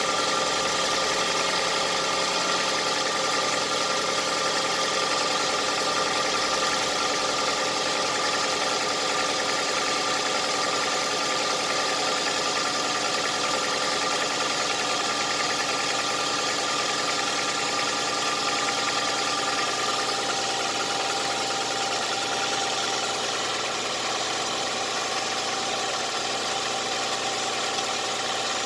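Toyota 1AZ-FE inline-four engine running steadily, with the beginnings of a knock from the piston and connecting rod of cylinder 4 after about 400,000 km. A thin whine in the mix drops away about twenty seconds in.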